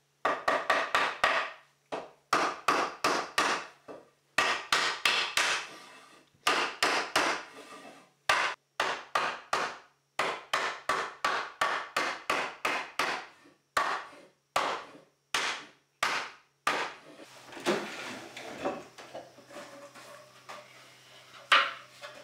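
Wooden mallet striking a chisel into wood in quick runs of sharp blows, with short pauses between runs. About three-quarters of the way through, the blows stop and give way to quieter scraping of the chisel, with one sharp knock near the end.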